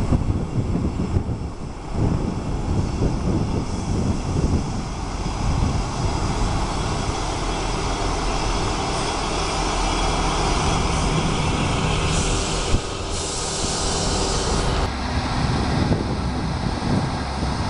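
A Class 158 diesel multiple unit runs into the station, its engine and wheels on the rails growing louder as it approaches. A higher hiss joins for a couple of seconds about twelve seconds in. Wind rumbles on the microphone throughout.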